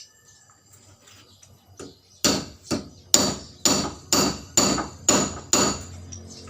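Eight hammer blows on metal, about two a second, each with a short ringing tone, starting a little after two seconds in.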